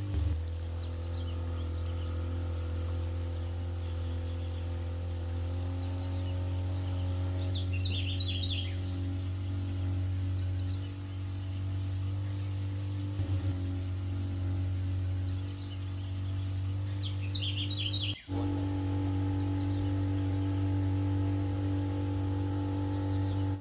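A steady low hum, most likely the boat's motor running slowly, with birds chirping in short quick bursts three times over it. The sound drops out for a moment about three-quarters of the way through.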